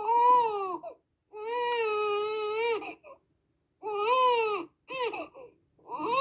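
An infant crying: a run of drawn-out wails, each about a second long, broken by short gaps for breath and a couple of brief, catching cries between them.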